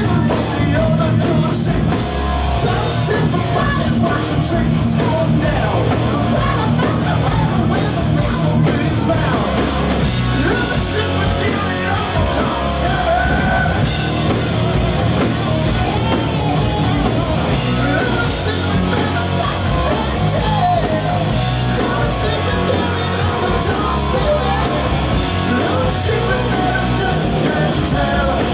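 Live hard rock band playing at full volume: electric guitars, bass and drums, with a singer's lead vocals over them.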